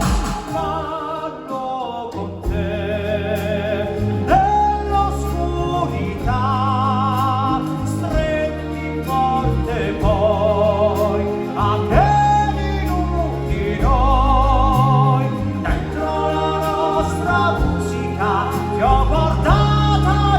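Live stage-show music: a singer holding long notes with a wide vibrato over a sustained band accompaniment with a steady bass.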